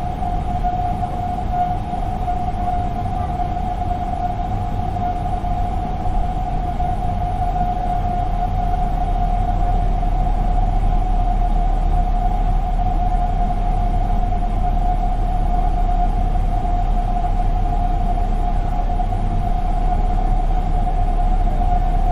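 Jet airliner engine noise heard from inside the cabin: a steady low rumble with a constant whine on top, getting slightly louder about eight seconds in.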